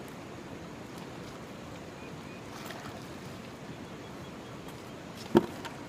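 Steady rush of a flowing river, with one sharp knock near the end.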